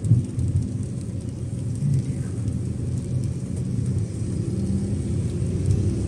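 Steady low drone of a car driving on a wet road, heard from inside the cabin: engine and tyre noise with a light hiss of rain.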